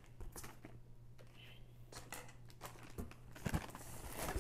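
Faint rustling and crinkling of food packaging as hands rummage inside a cardboard box, with a few soft knocks about three seconds in; the crinkling grows louder near the end.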